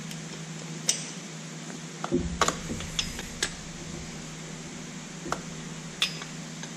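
About half a dozen sharp metallic clicks and clinks of a torque wrench and socket working the cylinder hold-down nuts on a Lycoming O-320 engine, spread out over a steady low hum.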